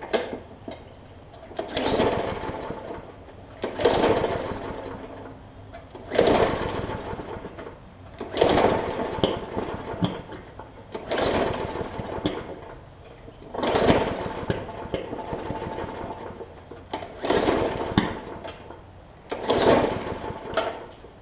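Briggs & Stratton OHV push-mower engine being pull-started about nine times, two to three seconds apart. Each recoil pull cranks it into a brief burst of popping that dies away without catching, a sign of water in the fuel and probably on the spark plug.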